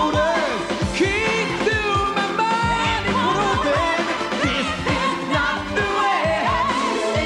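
1980s pop band playing a song: a drum kit keeping a steady beat under a sung melody line with no clear words.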